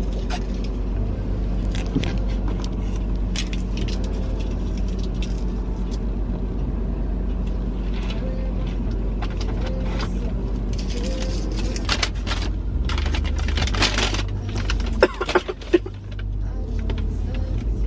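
Steady low rumble of a car's engine heard from inside the cabin, with small clicks and rustles throughout and a few sharp clicks about fifteen seconds in, when the rumble briefly dips.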